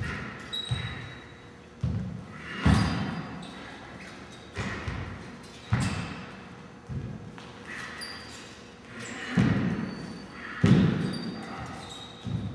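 Footwork stamps and steps on a hard studio floor during a saber form: about a dozen irregular thuds, some in quick pairs, each echoing in a large, bare room.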